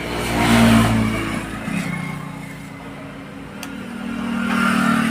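Passing road vehicles: the engine sound swells and fades twice, loudest about a second in and again near the end.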